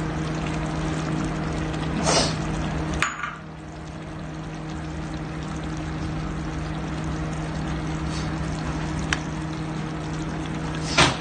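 Spicy sardine curry simmering in a pan on a gas stove, a steady liquid hiss, with a low hum that stops abruptly about three seconds in. Near the end a spoon knocks and scrapes in the pan as the curry is stirred.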